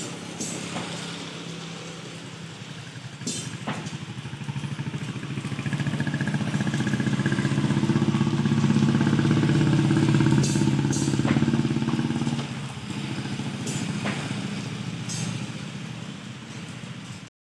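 A motor running steadily with a fine, even pulse, growing louder from about five seconds in and easing off again after about twelve seconds, with a few sharp clicks.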